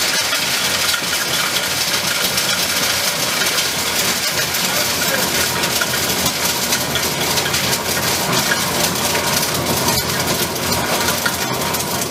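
Brick-making machinery running: a steady mechanical din full of dense, gritty rattling, like soil and grit being churned.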